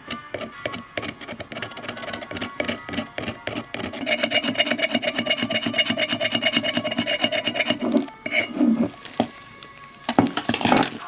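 Abrasive rubbing on a ceramic teapot spout being smoothed during a kintsugi repair, in quick back-and-forth strokes. The strokes come fastest and most evenly from about four seconds in to about eight seconds, with a louder scrape near the end.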